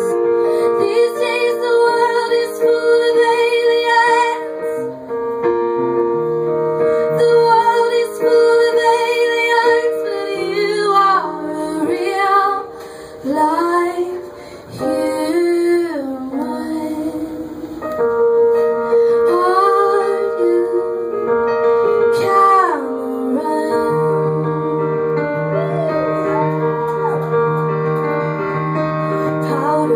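A woman singing live while accompanying herself on an upright piano, her sung phrases sliding in pitch over held piano chords.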